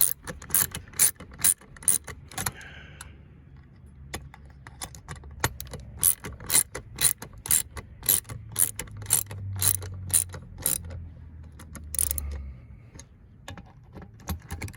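Hand ratchet clicking in runs of about three clicks a second with short pauses, driving the T30 Torx bolts that hold the seat bracket.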